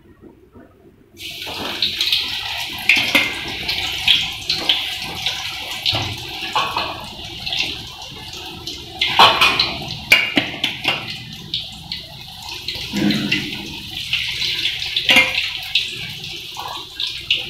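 Marinated cauliflower pieces deep-frying in hot oil in a kadai, a steady sizzle thick with crackles that starts about a second in as the pieces go into the oil.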